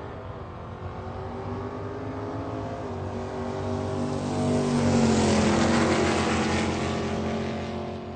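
Sports car engine driving past: it grows louder, is loudest about five seconds in, and drops a little in pitch as it goes away.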